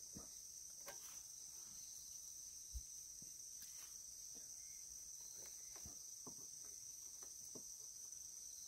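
A steady, high-pitched insect chorus, with a few faint clicks and taps of hand tools against a number plate and one soft low thump about three seconds in.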